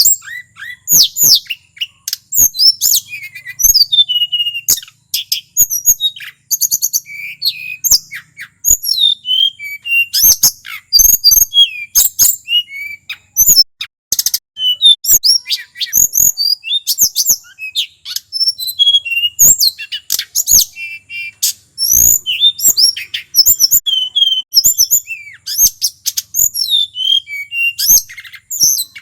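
Male hill blue flycatcher (tledekan gunung) singing continuously: a rapid, varied stream of high whistled notes, slurs and trills, with sharp ticks mixed in.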